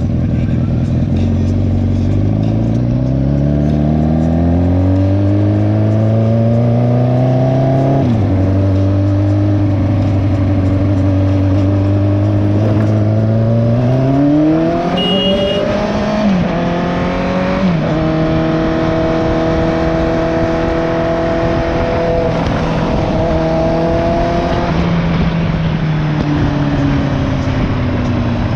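Motorcycle engine with a leaking exhaust, pulling through the gears. Its pitch climbs, drops sharply at gear changes about eight seconds in and again a little past halfway, holds steady while cruising, then falls away near the end as the bike slows.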